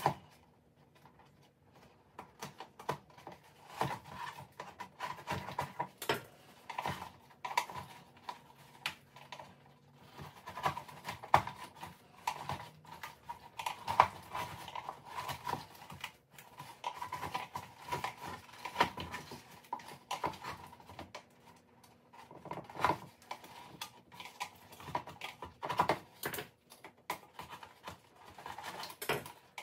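Irregular clicks, scrapes and plastic creaks as gloved hands work an oven-warmed Mercedes G63 headlight housing, pulling the old softened lens glue out of its channel.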